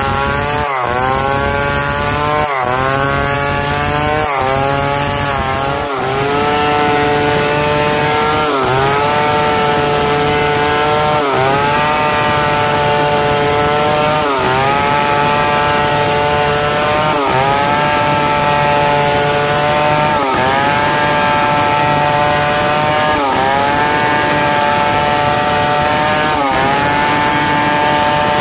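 Stihl 070 two-stroke chainsaw ripping lengthwise along a log at high revs. Its pitch dips briefly under load every two to three seconds and recovers.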